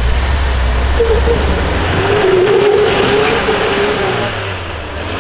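Off-road truck engine revving hard under load: a low rumble, then a higher wavering engine note that swells in the middle and eases off near the end.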